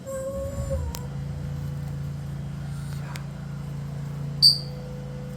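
One short, high chirp from a parrot about four and a half seconds in, the loudest sound here, over a steady low hum.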